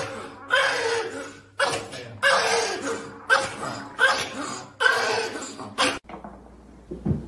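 A Pomeranian standing in bathwater lets out a string of short, loud yelping cries, about eight in a row, each one fading quickly. They stop abruptly about six seconds in, leaving a faint room hum and a low thump near the end.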